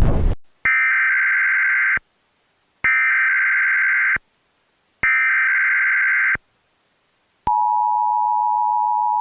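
Emergency Alert System tones: three bursts of SAME header data, each a little over a second long with short silent gaps, then the steady two-tone EAS attention signal starting near the end and holding. A loud noisy sound cuts off right at the start.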